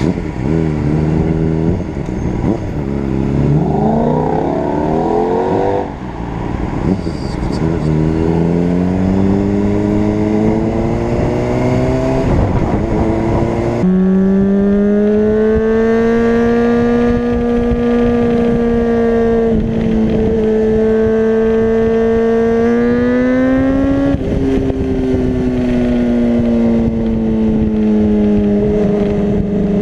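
Honda CBR600RR's inline-four engine under way: it revs up in quick rising steps through the gears for the first half, then about halfway through settles abruptly to a steady pitch at cruising speed, with small rises and dips.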